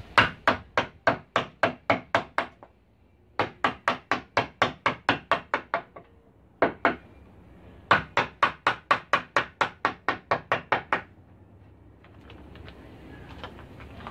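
Wooden carving mallet striking a chisel handle as the chisel cuts into wood: quick, steady knocks about four a second, in three runs of roughly ten blows with short pauses and a single blow between the second and third runs.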